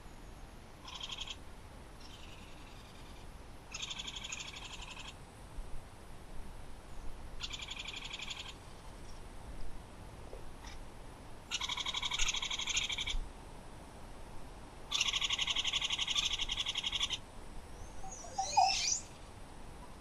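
Rapid pulsed trills from a calling animal, repeated about six times a few seconds apart, each lasting one to two seconds, with the later ones louder. Near the end comes one short call that sweeps in pitch.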